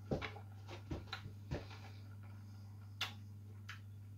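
Crunching on a Takis Queso Volcano rolled tortilla chip: several short, irregular crisp crunches, bunched in the first two seconds and again about three seconds in, over a steady low electrical hum.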